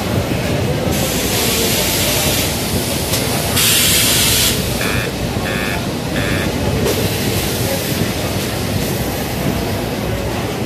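Automatic shirt armhole press machine hissing in bursts against steady machinery noise, with the loudest hiss about four seconds in. Three short beeps sound about five to six and a half seconds in.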